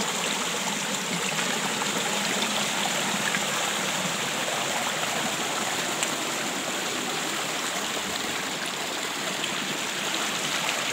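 Small rocky mountain stream running over and between stones, a steady rushing and gurgling of shallow water.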